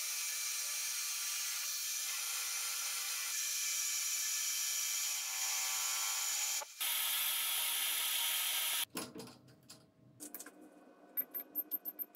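Metal lathe cutting tool taking a cut on a spinning metal disc: a steady, high-pitched scraping with ringing tones, broken for a moment near two-thirds through and stopping about nine seconds in. Then light clatter and a run of short, high beeps as keys on the lathe's digital readout are pressed.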